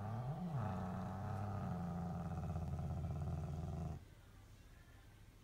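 Domestic long-haired cat growling: one long, low, continuous growl that rises and falls in pitch about half a second in and cuts off about four seconds in. It is a warning growl from a cat guarding a stolen packet held in its mouth.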